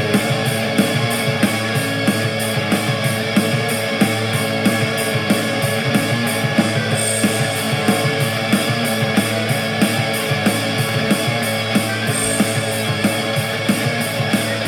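Rock music with guitar and a fast, steady drum beat, played back on a small JBL Go 3 Bluetooth speaker during a sound test.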